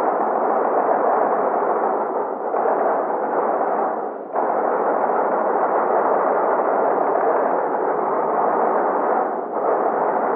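Dense, continuous metallic din of an axe forge shop, with presses and hammers working and metal ringing, blended into one steady wall of noise that dips briefly about two and a half and four seconds in and again near the end. It is heard through the dull, narrow sound of an old film soundtrack.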